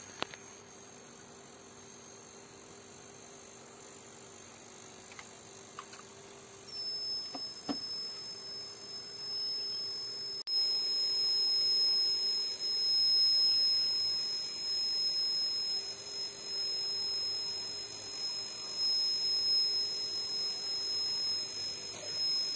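Buzzer of a homemade water-tank level alarm sounding one steady, high-pitched continuous tone. It starts suddenly about seven seconds in and gets louder at about ten seconds. Before it there is only a faint hum and a couple of small clicks.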